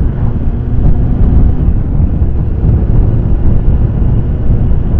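Motorcycle engine running steadily under way, with heavy low wind rush over the microphone.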